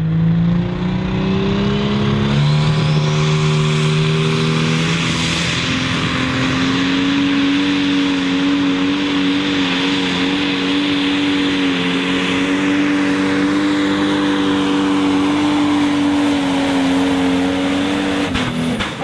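Pro Stock pulling tractor with a John Deere 8520 body, its turbocharged diesel engine at full throttle under heavy load, pulling the weight sled. The pitch shifts in steps during the first several seconds, then holds steady at high revs until the engine comes off the throttle and falls away near the end.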